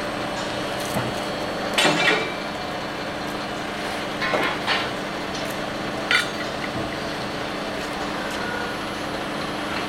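Metal clanks and knocks from steel fairground-ride parts being handled during assembly. There is a cluster about two seconds in, another pair a little after four seconds and a sharp single clank about six seconds in, all over a steady mechanical hum.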